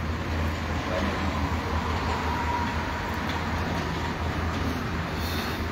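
Steady low rumble with an even hiss of background noise, with a faint held tone about two seconds in.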